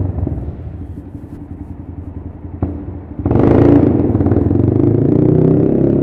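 Honda MSX125 (GROM) single-cylinder four-stroke through a TYGA full stainless race exhaust with carbon can, pulsing at low revs off the throttle. About three seconds in the throttle opens and the exhaust note jumps louder and rises in pitch, inside an underground car park.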